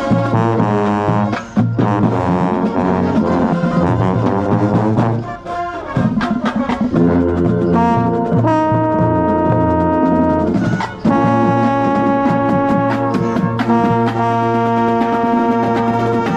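Marching show band's brass section playing, with a trombone close by: a quick, busy passage, a short break about five seconds in, then long held chords, broken again briefly near the end.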